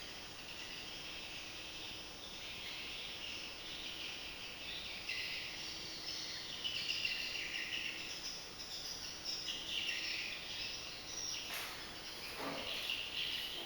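Insects and birds chirping: shifting high chirring with bird calls, and a couple of faint clicks near the end.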